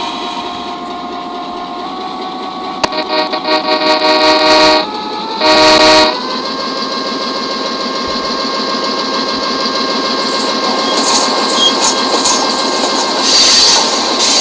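Freight locomotive horn sounding two blasts, a longer one and then a short one, over the steady running of a freight train. High wheel squeals come in near the end.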